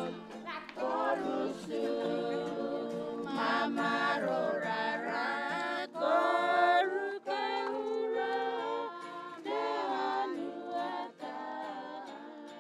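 Soundtrack music: a group of voices singing a cappella in harmony, fading out near the end.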